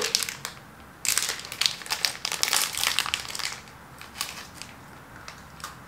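A plastic snack wrapper crinkling as it is torn open by hand. It starts abruptly with a dense run of crackles about a second in, which thins to scattered crinkles after about three seconds.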